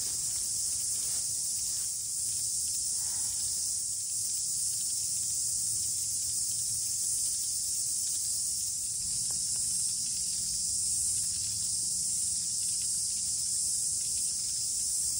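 Steady, high-pitched shrill chorus of insects in the bush, unbroken throughout, over a faint low rumble.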